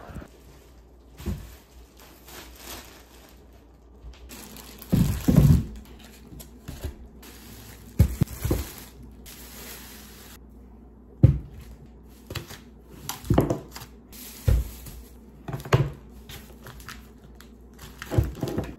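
Thin plastic produce bags rustling and crinkling as groceries are lifted out and laid on a table, with irregular thunks of items being set down.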